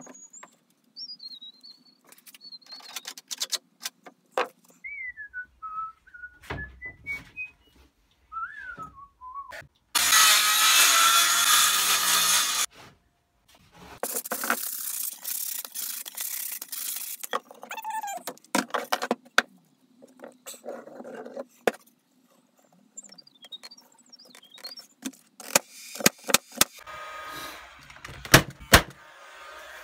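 Wooden box parts being handled and fitted: repeated knocks and taps of boards and OSB panels. A thin wavering whistle rises and falls through the first nine seconds. Two loud hissing stretches of a few seconds each, the first about ten seconds in, and a burst of sharper knocks near the end.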